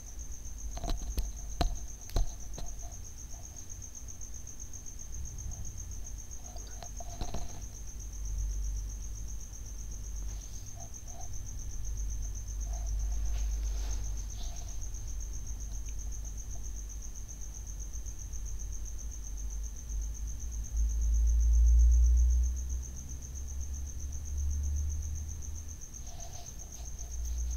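Steady high-pitched trilling of a cricket, over a low rumble that swells about three-quarters of the way through. A few light clinks of a whisk and spatula against a glass bowl in the first couple of seconds and again around seven seconds.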